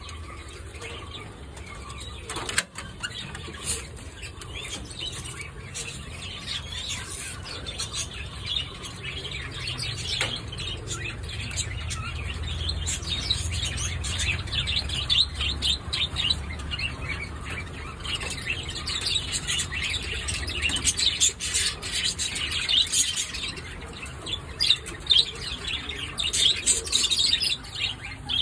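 Many short, high-pitched chirps and squeaks from small caged animals or birds, growing busier in the second half, over a low rumble.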